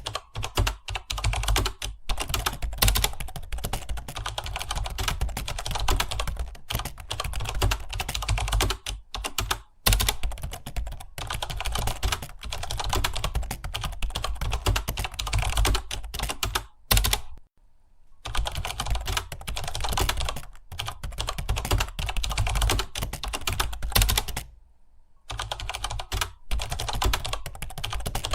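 Fast, continuous typing on a computer keyboard, key clicks coming in a rapid stream, with two brief pauses, one a little past halfway and one near the end.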